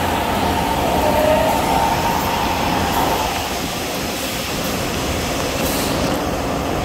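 Steady factory machinery noise, with a high whine that fades out about three seconds in.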